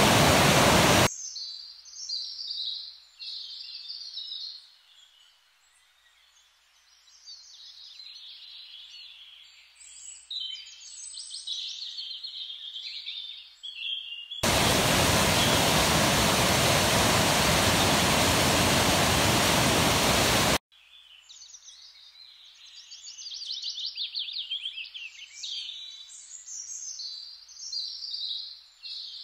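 Rushing water of a rocky cascade, loud and steady, cutting off abruptly about a second in and cutting back in from about halfway for some six seconds. Between, songbirds singing, with quick trills near the end.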